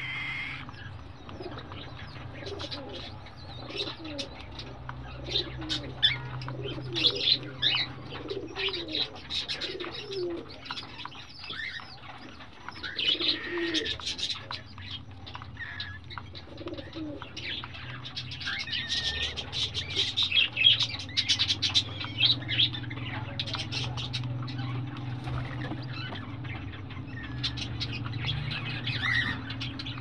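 Week-old cockatiel chicks cheeping in the nest box: a busy, uneven stream of short high chirps, in spells of louder, denser calling, over a steady low hum.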